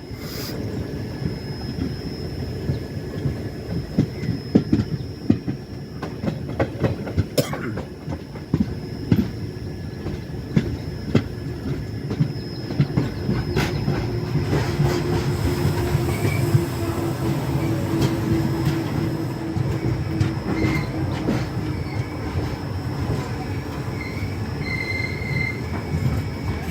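Passenger train running on rails: a steady wheel rumble with frequent sharp clacks over the rail joints, and thin high wheel squeals joining in over the second half.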